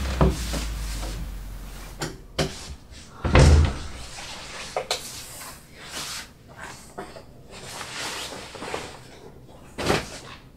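An interior door opening, then shutting with a heavy thump about three and a half seconds in, followed by scattered clicks, knocks and rustling of someone moving about a small room. A low hum dies away over the first couple of seconds.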